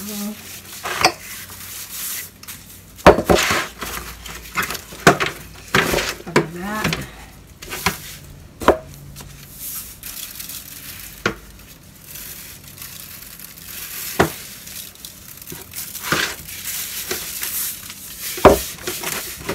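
Disposable aluminium foil roasting pan crinkling and knocking as gloved hands move and rub salt into a raw pig head in it, with irregular sharp taps and rustles.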